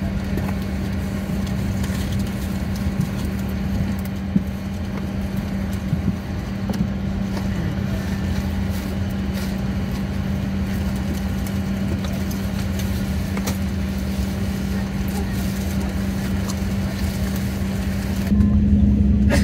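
Steady cabin hum inside an Airbus A350-900 during pushback, with one constant low tone and a few faint clicks. Near the end it suddenly becomes louder and deeper, and the higher sound drops away.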